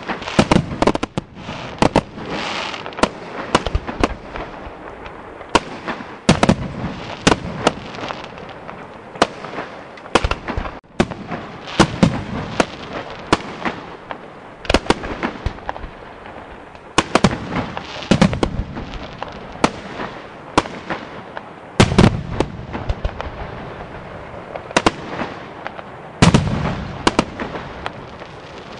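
Fireworks display: aerial shells bursting one after another, dozens of sharp bangs with heavier booms every few seconds.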